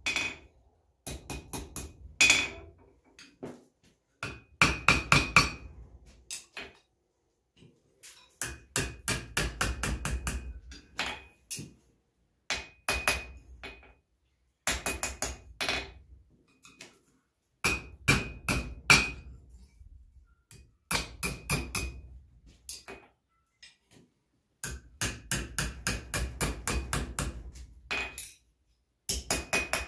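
Hand hammer striking a red-hot iron bar on an anvil, bending it into a curve over the horn. The blows come in quick runs of about five a second, each run lasting a second or three with short pauses between, and the anvil gives a high ring with the strikes.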